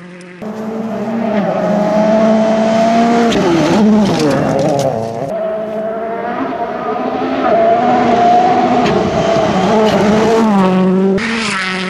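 Ford Fiesta RS WRC rally car's 1.6-litre turbocharged four-cylinder engine running at high revs on a gravel stage. The pitch falls and rises through gear changes about four seconds in, then holds fairly steady.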